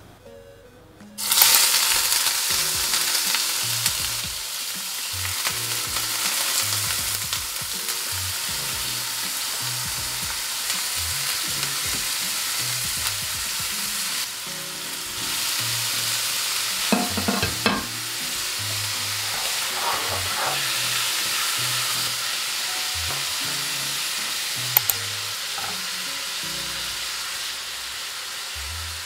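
Food dropped into hot oil in a pan starts sizzling suddenly about a second in and keeps frying steadily while it is stirred. A few short clicks of a utensil against the pan come past the middle.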